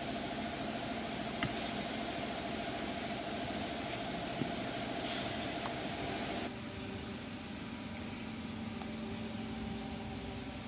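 Steady hum and hiss of running machinery, with a thin high whine and a few light clicks. About six and a half seconds in, the hum drops slightly and changes character.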